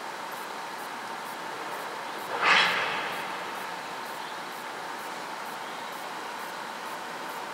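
A short, loud hiss about two and a half seconds in, fading within about half a second, over a steady background hiss.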